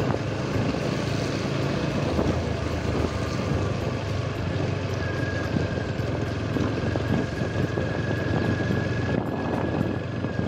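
Motorcycle engine running steadily at low road speed, with a continuous rush of wind and tyre noise on a wet road. A thin steady whine joins in about halfway through.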